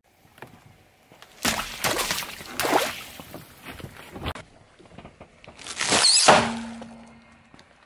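Water balloons bursting under a car tyre, two loud pops with a splash of water a little over a second apart, then smaller ones. About six seconds in, a gold foil balloon is squashed under a tyre and bursts with a loud crinkling pop and a short squeal.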